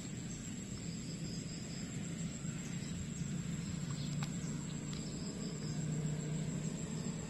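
Riverbank ambience: a steady high insect trill, with faint chirping that comes and goes, over a low steady hum.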